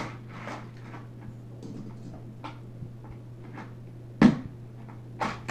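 Hot Wheels die-cast toy cars clicking and clattering as they are set onto the decks of a plastic car-transporter truck, with a sharper knock about four seconds in.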